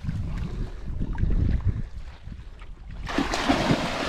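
Wind rumbling on the microphone over the small sounds of a dog wading in shallow loch water. About three seconds in, loud splashing starts as the dog bounds out through the water.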